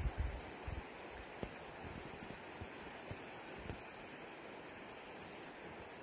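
Outdoor mountain-meadow ambience: wind on the microphone, gusting low at the start and end, over a steady, rapidly pulsing high buzz.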